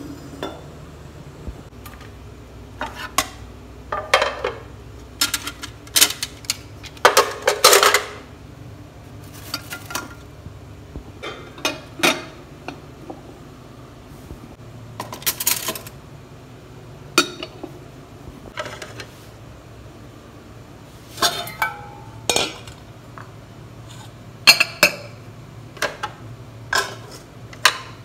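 Washed dishes clinking and clattering as they are picked up and set down one after another: glass jugs, steel cutlery and stacked ceramic plates and glass bowls knocking together in irregular clinks, sometimes several in quick succession, over a faint steady hum.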